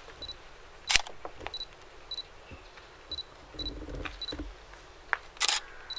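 Sharp clicks, the loudest about a second in and again near the end, with a short high chirp repeating every half second or so.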